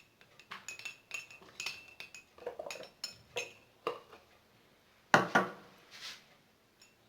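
A small spoon stirring honey into a hot lemon-and-clove drink, clinking against the cup about twice a second with a faint ringing note as the honey dissolves. About five seconds in comes a single much louder knock.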